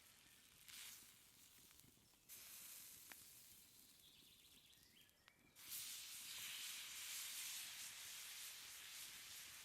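Steak sizzling in butter on a hot stone, a faint hiss that jumps louder in steps and is loudest from a little past halfway. A few short bird chirps sound in the background.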